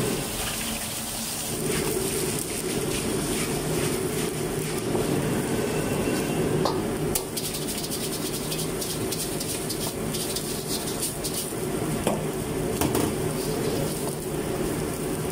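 A commercial gas wok burner burning with a steady low rush under a hot, smoking wok, with a few sharp metal clinks against the wok.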